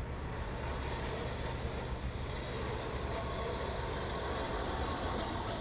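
Electric street tram running along its rails: a steady rumble with a faint whine over it.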